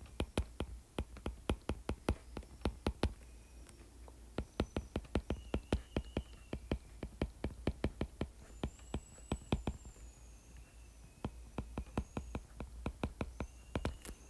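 Stylus tip tapping on a tablet's glass screen while hand-lettering words, an irregular run of sharp ticks several a second, with a brief pause near the middle, over a faint low hum.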